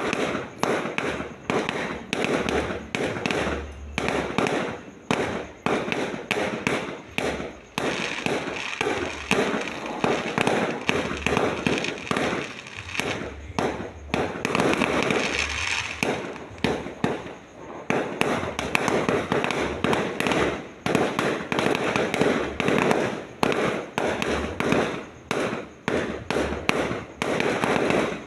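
Fireworks going off in a dense, continuous barrage: many bangs and crackles a second, overlapping without a break.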